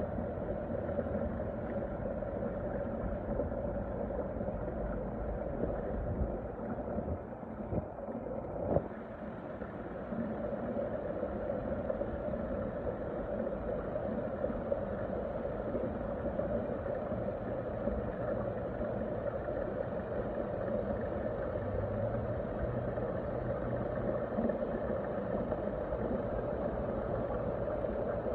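Steady low hum of running machinery, with one sharp knock about nine seconds in.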